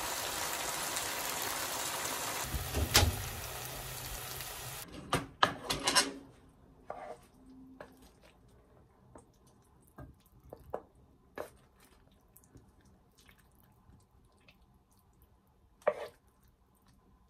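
A stir-fry of rice cake slices, napa cabbage and pork sizzling in a nonstick frying pan; the sizzle cuts off suddenly about five seconds in. Then come scattered scrapes and knocks of a wooden spatula against the pan as the food is pushed onto a plate, with one louder knock near the end.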